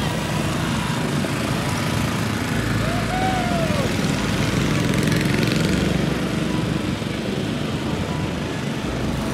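Small engines of miniature antique-style parade cars puttering past in a steady run, with a short rising-and-falling tone about three seconds in.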